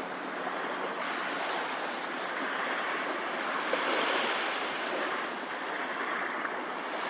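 Sea waves washing onto the shore: a steady hiss of surf that swells a little in the middle.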